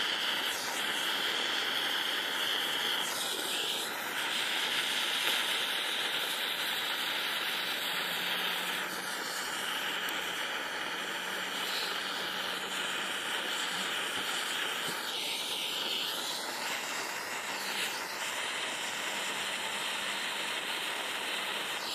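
Weco pyrotechnic fireworks lighter stick burning with a steady hiss.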